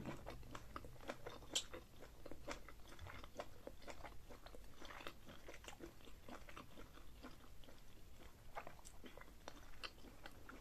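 Close-miked chewing of a mouthful of sausage coated in chili butter sauce: an irregular run of small mouth smacks and clicks, one sharper click about one and a half seconds in.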